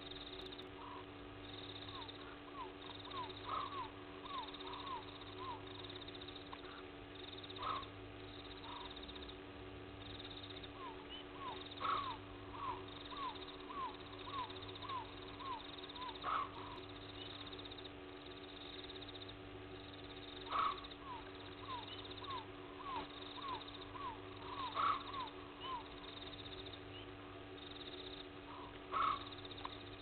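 Night-time animal calls: runs of short falling calls, two or three a second, with a louder call about every four seconds, over a steady hum.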